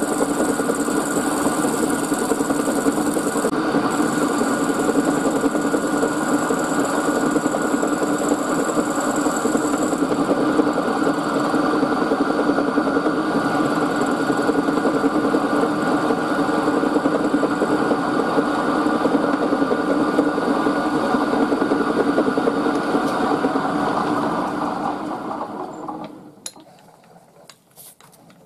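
Milling machine running, its end mill cutting a brass bar clamped in a vise: a steady motor-and-cutting noise. Near the end it dies away over a couple of seconds as the spindle stops, then a few faint clicks.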